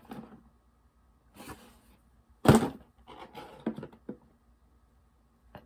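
Fidget toys being handled and set down on a surface: scattered rustles and light knocks, with one sharp clack about two and a half seconds in.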